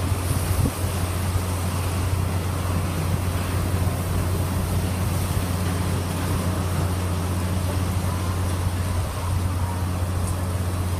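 Hurricane-force wind blowing hard and without a break, with driving rain: a constant low rumble under an even hiss.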